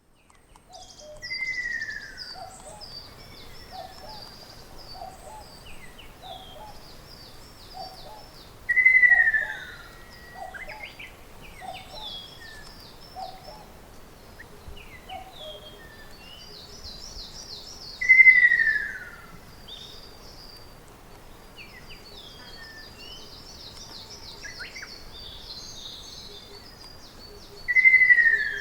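Ruddy kingfisher calling: a loud, falling trilled whistle about a second long, repeated four times roughly nine seconds apart. Other birds twitter high and continuously behind it, and a low note repeats about once a second through the first half.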